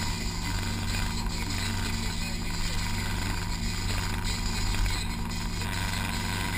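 Off-road 4x4's engine running steadily as it drives over a rocky dirt track, heard from inside the cabin, with a few short knocks and rattles from the vehicle.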